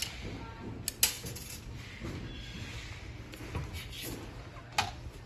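Sharp clicks and knocks of machine parts being handled during disassembly: two close together about a second in, the loudest, and another near the end, over a low steady hum.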